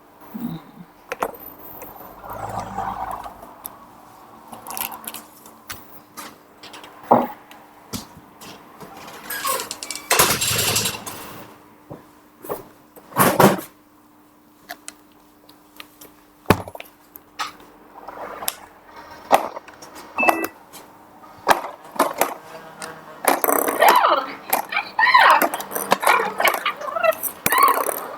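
Interactive toy dolphin moving and sounding off: a string of irregular clicks and knocks from its mechanism and handling, with a faint steady electric hum. Near the end comes a busier run of chirpy, wavering toy sounds.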